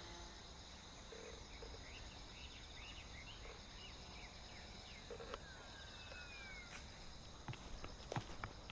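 Faint outdoor ambience: birds giving short repeated chirps and one falling call, over a steady high insect drone, with a few sharp clicks and knocks near the end.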